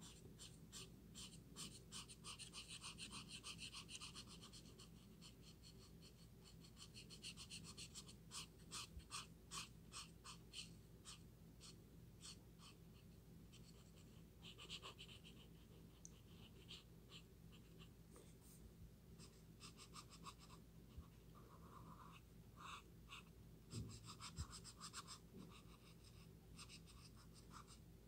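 Faint scratching of a cool grey marker nib on paper in quick, short strokes that come in spells, as a grey layer is coloured over brown-grey.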